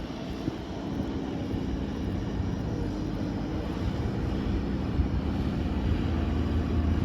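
JCB 3CX backhoe loader's 4.4-litre diesel engine running with a steady drone, growing gradually louder.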